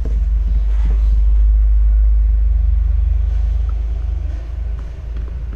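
A loud low rumble that comes in suddenly, swells and slowly fades, with a few faint light clicks of a phone and its case being handled on a rubber mat.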